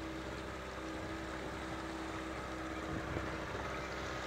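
Motorboat engine running steadily: a constant hum at one pitch over an even hiss.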